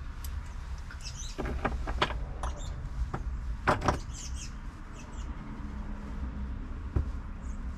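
Short metallic clicks and clinks of bolts, washers and an Allen key against a Goose-Gear rear seat platform as its bolts are started by hand. They come in two small clusters, about a second and a half in and again near four seconds, over a low steady rumble.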